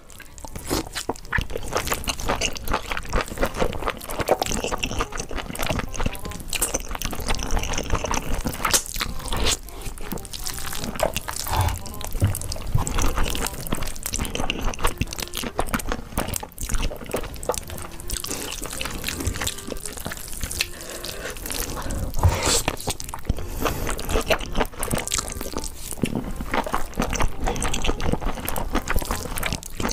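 Wet slurping and chewing of thick, sauce-coated spicy noodles, a continuous run of sticky mouth clicks and smacks.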